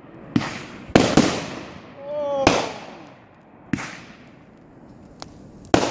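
A string of loud, sharp bangs: six in about six seconds, unevenly spaced, each one trailing off. A short voice call comes in between them, about two seconds in.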